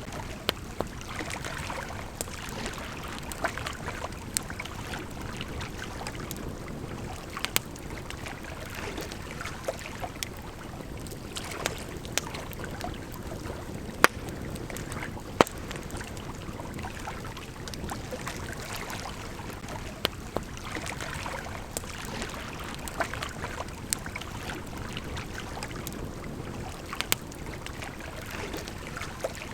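Campfire crackling with scattered sharp pops, two of them louder about halfway through, over the steady rush of a gently flowing river.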